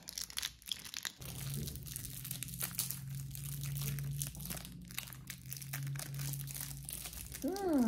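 Small plastic wrappers of individually wrapped Warheads sour candies crinkling as they are unwrapped, in light rustles and clicks. A low steady hum comes in about a second in, and near the end a voice slides down in pitch.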